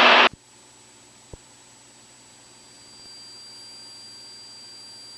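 Faint steady electronic hiss and hum, with a single soft click about a second in and a thin high steady tone joining about three seconds in.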